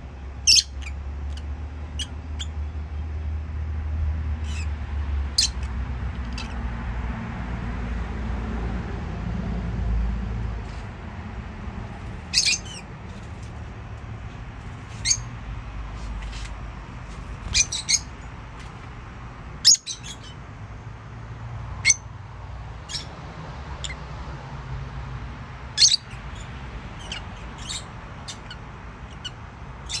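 Lovebirds giving short, sharp, high-pitched chirps, a dozen or so scattered singly and in quick pairs. A low rumble runs under the first ten seconds or so.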